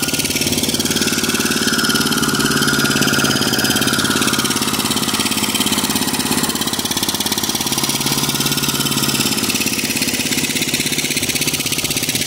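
Diesel engine running steadily, an even low rumble.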